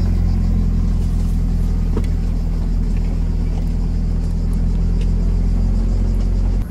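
Diesel engine of a 4x4 pickup heard from inside the cab while driving, a steady low drone that drops away suddenly at the very end.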